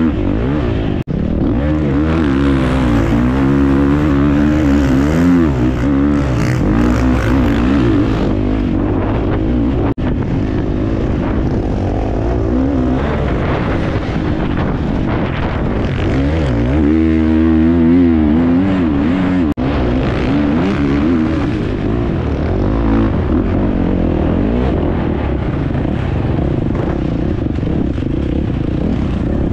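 Off-road racing motorcycle engine running hard under riding, its pitch swinging up and down as the throttle is opened and closed, with the quickest rises and falls a few seconds in and again just past the middle.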